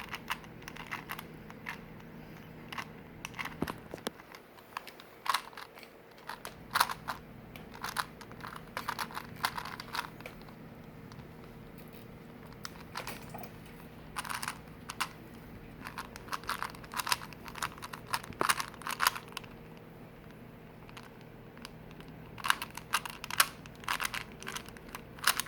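Plastic 3x3 Rubik's cube being turned fast by hand mid-solve: quick runs of clicking, clacking layer turns, in bursts broken by short pauses.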